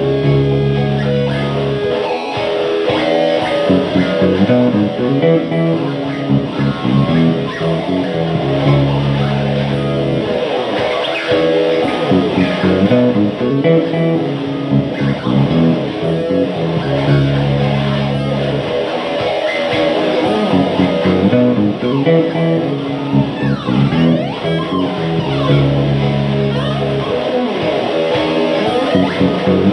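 Electric guitar music, with chords over a low bass figure that comes round about every eight seconds, and some sliding notes.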